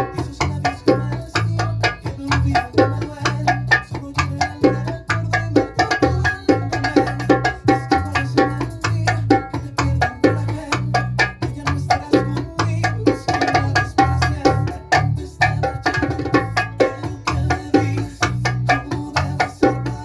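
A bachata song playing, with bass notes and a dense run of hand-drum strokes throughout, as a bongo is played along to keep the bachata groove (derecho and martillo patterns).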